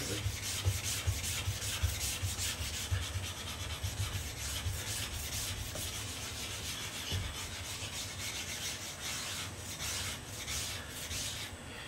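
A 100-micron diamond resin groomer rubbed back and forth on a wet 50-micron diamond resin sharpening plate, a gritty grinding in many repeated strokes. The groomer is cleaning embedded knife metal out of the plate's surface.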